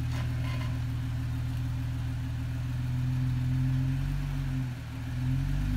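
Jeep Wrangler Rubicon's V6 engine pulling at low revs as the Jeep crawls over a rock ledge. The engine note rises slightly about three seconds in, dips briefly near the end, then picks up again.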